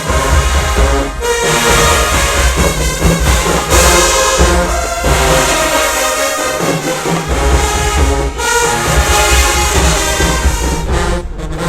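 HBCU marching band playing loudly: brass (trombones, trumpets, sousaphones) over pounding drums.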